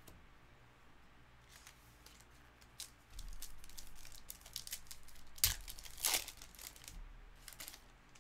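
Hands tearing open a Panini Legacy football card pack: the wrapper crinkles and rips, and the cards inside slide and tick against each other. There are two louder rips, about five and a half and six seconds in.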